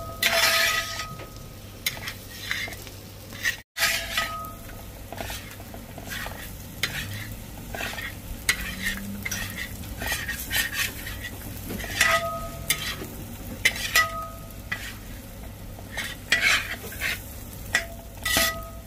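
Spatula stirring and scraping beef fry with coconut pieces around a pan as it sizzles, the beef being roasted dry near its final stage. The strokes come irregularly, several with a short metallic ring.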